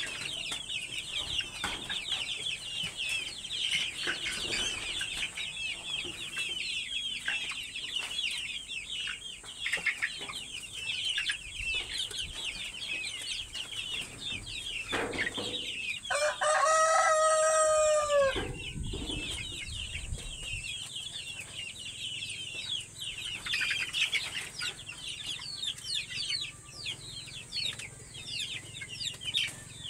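A flock of chicks and young chickens peeping continuously in high, rapid cheeps. About halfway through, a rooster crows once, a long call of about two and a half seconds that drops in pitch at the end and is the loudest sound.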